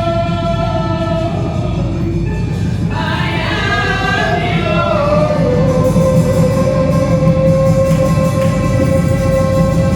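Gospel singing over backing music: a long held note, a moving sung phrase about three seconds in, then another long held note.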